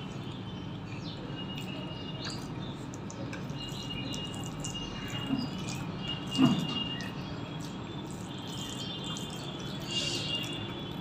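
Eating sounds: fingers mixing and squeezing rice with soft mashed raw papaya curry on a steel plate, with chewing and small wet mouth clicks. A brief louder mouth sound comes about six and a half seconds in.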